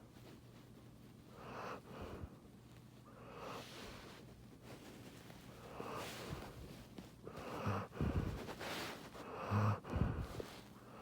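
Giant schnauzer snoring in its sleep: slow, breathy snores about every two seconds, with a few louder, rougher snorts near the end.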